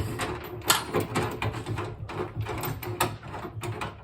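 Irregular clicks and knocks of metal ladder-rack parts being handled and adjusted into place.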